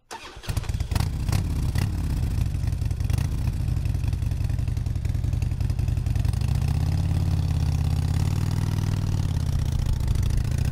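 Harley-Davidson V-twin motorcycle engine starting about half a second in, with a few sharp clicks over the first three seconds, then idling with a lumpy low beat. Between about six and nine seconds it is revved slowly up and back down.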